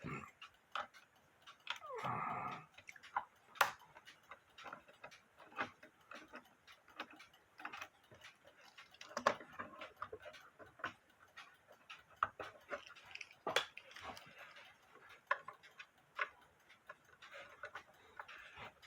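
Irregular small clicks and light scrapes of a screwdriver and metal screws being worked at the back of an old mechanical alarm clock, with a short scraping rattle about two seconds in.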